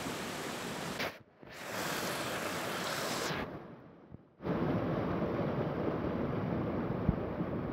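Muddy rainwater runoff rushing through a drainage channel in heavy rain, a steady rushing noise. It cuts out briefly about a second in and again for about a second near the middle, then comes back fuller and lower.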